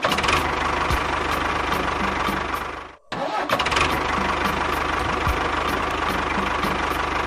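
A small engine running with a rapid, even knock. It cuts out abruptly about three seconds in and starts running again a moment later.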